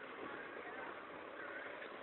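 Faint street background: a low hum of traffic with indistinct voices of onlookers.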